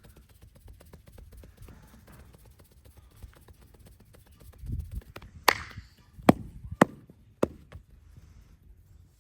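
Hand strikes of a massage: four sharp slaps, the first and loudest a little past the middle, then three more in quick succession, after a dull low thump just before them.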